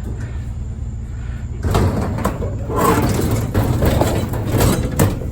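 Sheet-metal file cabinet being shifted and stood on end: scraping and clattering with several sharp metal knocks, starting about a second and a half in, over a steady low rumble.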